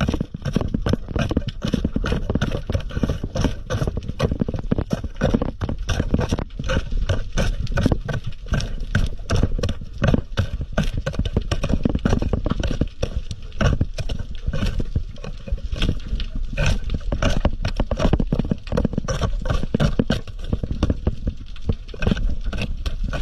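Underwater recording: a steady stream of uneven sharp clicks and knocks, several a second, over a low rumble of moving water.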